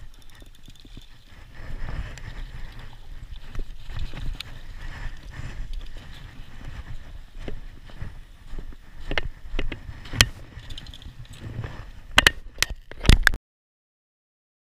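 Footsteps crunching in snow and clothing rubbing against a body-worn action camera, with scattered clicks and several sharp knocks near the end; the sound then cuts off suddenly.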